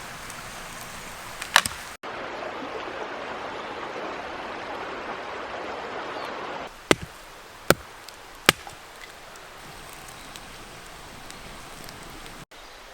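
Campfire of fatwood and sticks burning with a steady rushing hiss and a few sharp, loud pops.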